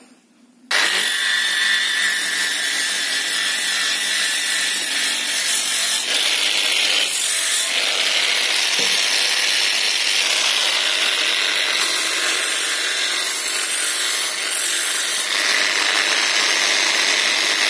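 Handheld power sander with an abrasive disc grinding an aluminium alloy wheel rim, smoothing down the welded repair. It starts abruptly about a second in and runs steadily with a high whine, its tone shifting a few times as the disc is pressed and moved.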